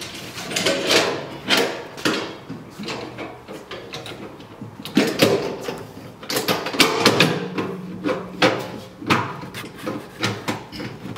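Stainless steel sifter rings and quick-release clamps clanking and clicking as they are handled and latched together: a series of irregular metal knocks.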